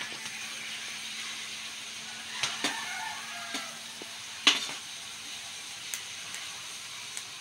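Meat sizzling in a metal wok, with a metal spatula scraping and knocking against the pan several times as it is stirred; the loudest knock comes about halfway through.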